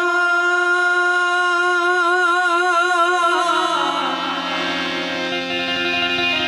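A male voice holds one long note of a devotional bhajan with a gentle vibrato, over harmonium. About three and a half seconds in, the voice gives way to steady harmonium notes, lower in pitch, over a low drone.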